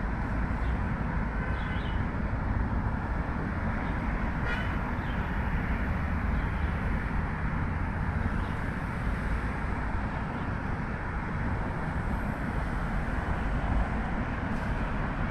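Steady traffic noise from a busy city ring road.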